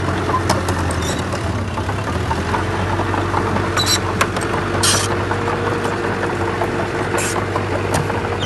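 Heavy diesel earthmoving engine running steadily, a low drone with a constant hum, broken by a few short high-pitched hissing clicks about four, five and seven seconds in.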